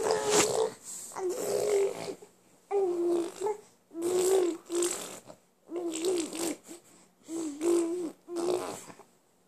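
Baby babbling: a string of short vocal sounds at a steady pitch, about ten in all, with brief pauses between them.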